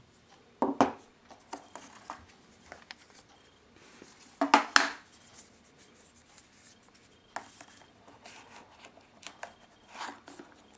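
Handling noise of iPhone 4S packaging: cardboard box parts, a paper insert and the accessories being moved and set down, with short rubs and clatters. The loudest knocks come a little under a second in and about four and a half seconds in.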